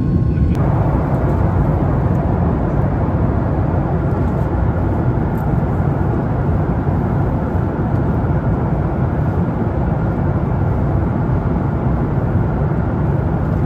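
Steady in-flight cabin noise of a Boeing 737 MAX 8, the engine and airflow heard from a window seat near the wing. The hiss grows fuller about half a second in.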